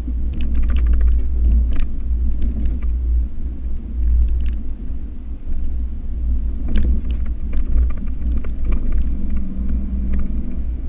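Ford F-150 Raptor driving on a dirt road, heard from inside the cab: a steady low rumble of engine and tyres, with scattered clicks and rattles over the rough surface.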